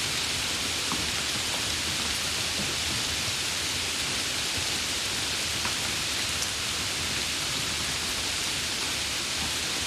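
Steady heavy rain falling, an even hiss with scattered individual drops.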